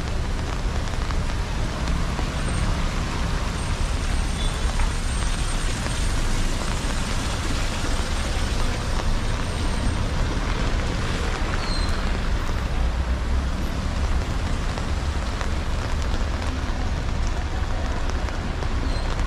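Heavy rain falling steadily on a city street, mixed with the low rumble of passing traffic.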